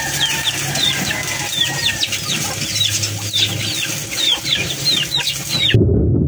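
Stick welder's arc crackling and hissing, with a chicken calling repeatedly over it in short falling chirps; the sound cuts off abruptly near the end.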